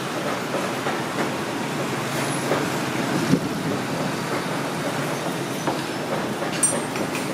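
Street-stall ambience: a steady noisy rumble with scattered clinks and knocks, the loudest knock a little over three seconds in.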